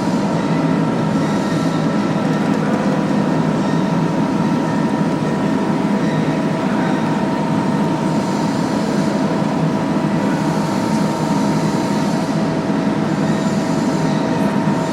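Lotze CNC press brake's motor running steadily: a constant hum with two steady whining tones above it.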